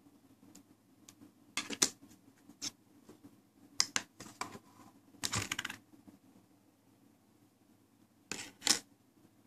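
Clicking and clattering of hard objects being handled, in several short clusters a second or two apart, over a faint steady hum.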